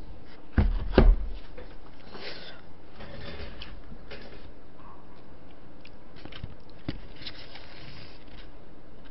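A plastic takeout food container set down on a table with two thumps about half a second apart. Softer rustling and scraping follow, with a few light clicks as chopsticks handle food.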